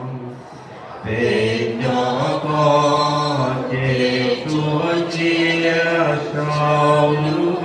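A group of men and women singing together without instruments, in slow, held notes. There is a brief pause between phrases about a second in, then the singing resumes.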